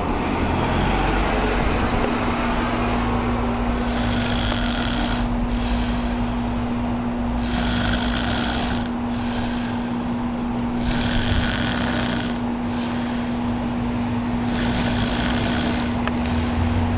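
A man snoring deeply in his sleep, one breath every three to four seconds, with a steady low hum underneath.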